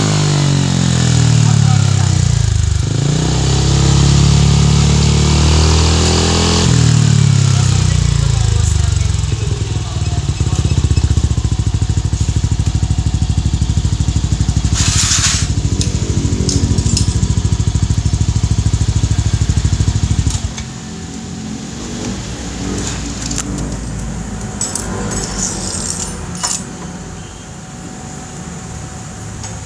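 Yamaha Aerox 155 scooter's single-cylinder four-stroke engine breathing through a JVT titanium aftermarket exhaust, blipped up and back down twice, then settling into a steady idle. About two-thirds of the way through the engine shuts off, leaving a few faint clicks.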